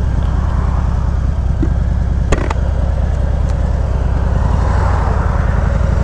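Harley-Davidson Heritage Classic Softail's V-twin engine running with a steady low throb, with one sharp click about two seconds in.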